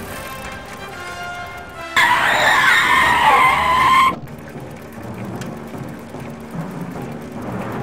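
Soundtrack music, broken for about two seconds near the middle by a loud, wavering high squeal that starts and cuts off abruptly, like a dubbed-in effect.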